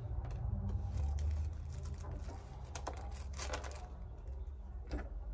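Light clicks and rustles of small clarinet keys and pads being handled while new pads are fitted, with a cluster of them near the middle and a sharper click near the end, over a steady low hum.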